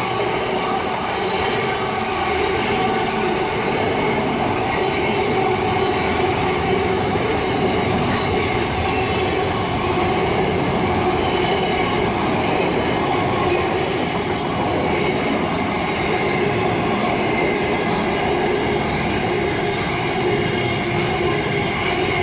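Freight train wagons rolling steadily past on a long intermodal train, with continuous wheel-on-rail noise and a faint steady squeal.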